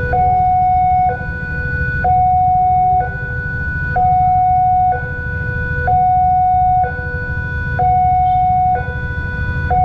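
Railway level-crossing warning siren sounding a two-tone high-low pattern, each tone held about a second, warning that a train is approaching. A steady low rumble lies underneath.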